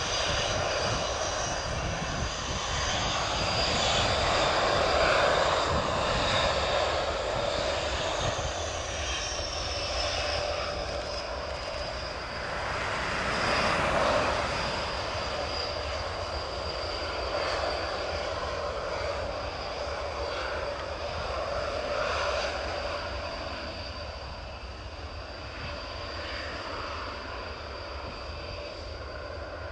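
Jet engines of Panavia Tornado fighter-bombers (Turbo-Union RB199 turbofans) running at low power as the jets taxi and line up on the runway: a steady high whine over engine noise. The whine drops slightly in pitch about eight to ten seconds in.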